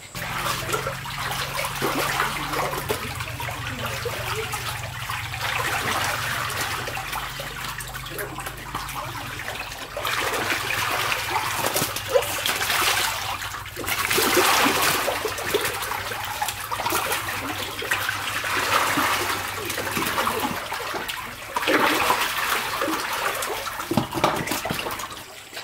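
Shallow water splashing and sloshing in surges as a person wades through a drained concrete catfish pond and scoops fish with a plastic basket, the catfish thrashing in the shallow water.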